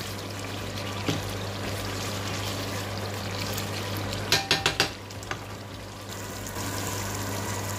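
Chicken karahi gravy bubbling and sizzling in a non-stick pan, a steady hiss. A knock about a second in and a quick run of about five sharp clicks around the middle.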